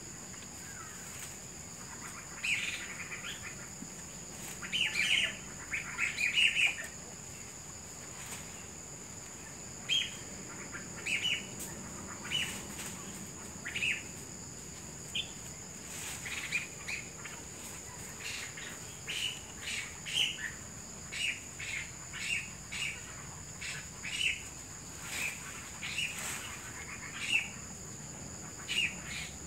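Small birds chirping in short calls, roughly one a second and in quick pairs, over a steady high-pitched insect drone.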